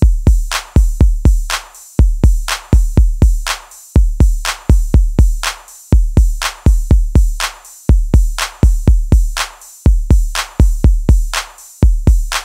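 Background electronic music: a drum-machine beat of deep kick drums with long low tails, repeating in the same short pattern about every two seconds, with no melody.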